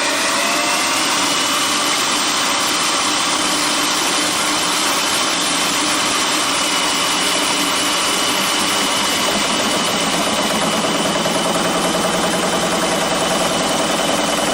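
Multi-saw sawmill machine running steadily, with a high whine that rises as the saw gets up to speed and holds a steady pitch from about a second in.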